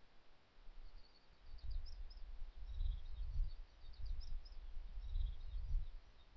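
Wind buffeting the camera microphone in uneven gusts as a low rumble, with faint, quick, high chirps of a distant bird.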